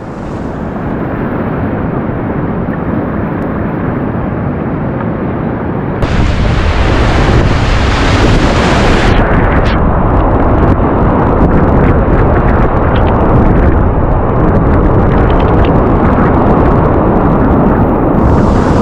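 Loud, steady rush of whitewater rapids around a kayak, with water splashing over the boat and onto the camera microphone. It grows louder and fuller about six seconds in.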